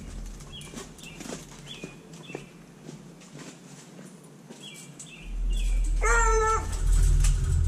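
Redbone coonhound whining: short high whimpers, then one longer pitched whine about six seconds in. A low rumble comes in about five seconds in.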